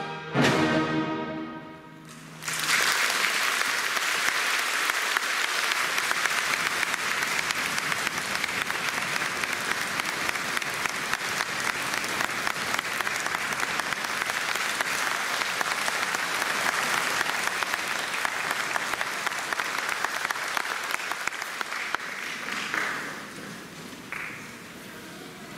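A wind band's final chord cuts off and rings briefly in the hall, then audience applause starts about two and a half seconds in, continues steadily and fades out a few seconds before the end.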